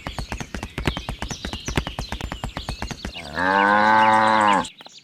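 A rapid clatter of sharp clicks, about ten a second, then a cow mooing once, a long, steady low call that cuts off abruptly.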